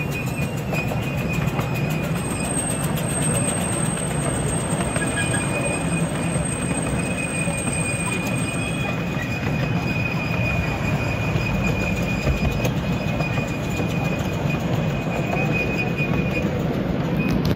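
Miniature 10¼-inch gauge railway carriage rolling along the track behind a steam locomotive, a steady rumble of wheels on rails. A thin, steady high squeal from the wheels on the curve runs along with it and stops about a second before the end.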